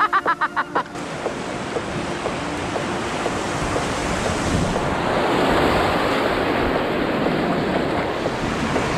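Whitewater rapids rushing steadily, a little louder from about halfway through. A voice is heard briefly at the very start.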